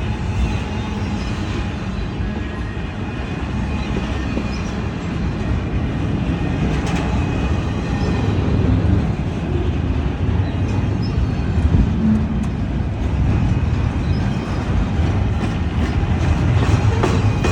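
Long freight train of container cars rolling slowly past, a steady rumble of steel wheels on the rails with scattered clicks and clanks. It grows a little louder in the second half.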